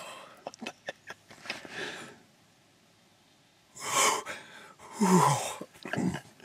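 A man breathing hard: a sharp, noisy breath about four seconds in, then a loud voiced exhale falling in pitch, like a sigh, a second later, with a few faint rustles before.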